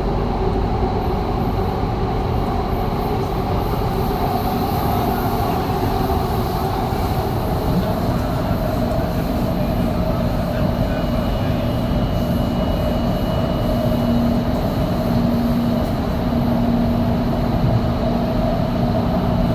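Doha Metro Red Line train running between stations, heard from inside the car: a steady rumble of wheels on rail with a constant motor hum. A faint high whine comes in about halfway through.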